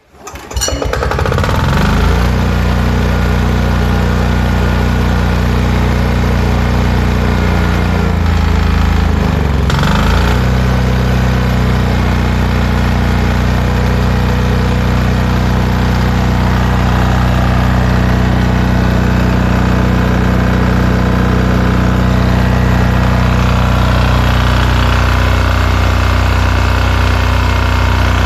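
Yanmar L50A single-cylinder air-cooled diesel engine pull-started on its recoil starter, catching within about a second and then running steadily. About nine seconds in its speed dips briefly and comes back up.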